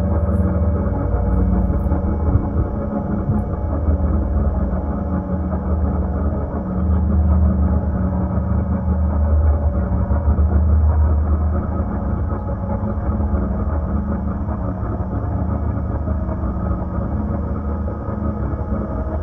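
A steady, low rumbling drone with several held low tones, swelling slightly around the middle.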